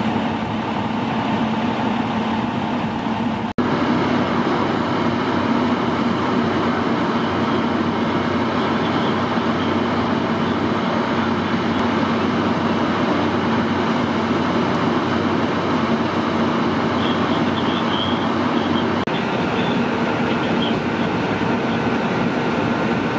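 Steady, loud rushing noise of a freight-car fire being fought: fire-hose water streams and flames, over a steady engine hum. The sound drops out for an instant at a cut about three and a half seconds in.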